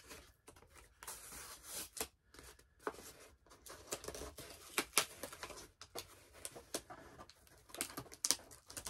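Scissors snipping into a cardboard mailer, with the stiff cardboard rustling and crackling as it is handled: an irregular scatter of snips, clicks and crinkles.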